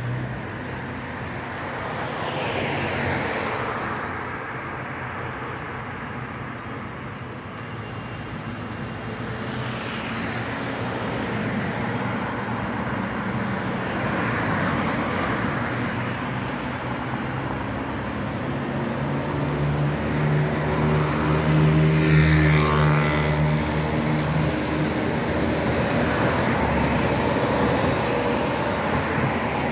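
Street traffic, with cars and a motor scooter passing one after another. A low-floor electric tram draws near and passes, its motors giving a steady hum and a sweeping whine that are loudest about two-thirds of the way through.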